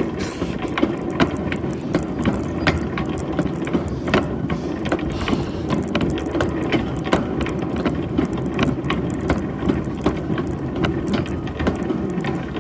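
Shopping cart rattling steadily as it is pushed over pavement, its wheels and wire frame giving off a constant stream of small clicks and knocks.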